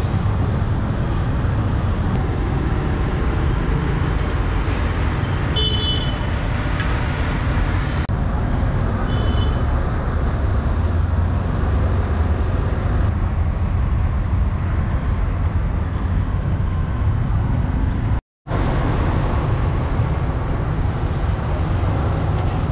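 Steady low rumble of street traffic, with two short horn toots about six and nine seconds in. The sound drops out for a moment about eighteen seconds in.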